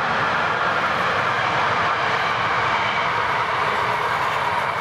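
Electric motor and gearbox of a scale RC model truck, giving a steady whir as it crawls up a dirt slope under power.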